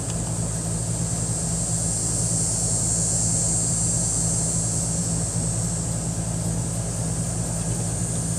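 Steady low mechanical hum, like a running air-conditioner unit or motor, with a steady high hiss above it; neither changes.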